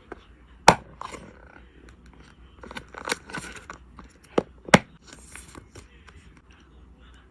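Photocard packing materials being handled: plastic sleeves and wrapping crinkling and rustling, with several sharp clicks and taps, the loudest under a second in and again near five seconds in.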